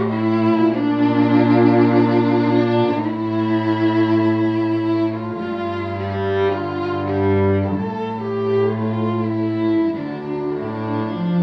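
Violin and cello playing a duet, the violin carrying the melody in long bowed notes over the cello's low held notes.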